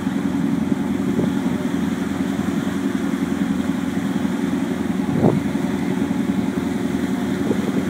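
Tour boat's engine running with a steady low drone while under way.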